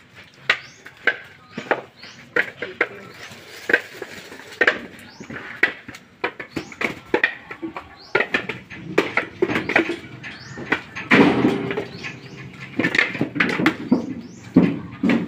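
Coconuts knocking against one another as they are picked from a pile and tossed into woven baskets: a steady run of sharp knocks, about two a second, growing busier and louder about eleven seconds in.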